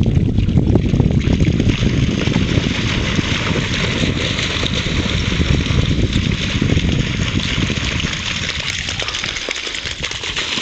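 Dogs splashing and running through shallow lake water, over wind buffeting the microphone; the wind rumble eases near the end.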